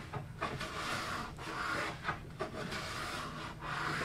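Stanley No. 4½ hand plane shaving walnut in several slow push strokes, each a dry scraping hiss broken by short pauses as the plane is drawn back, levelling a glued miter joint.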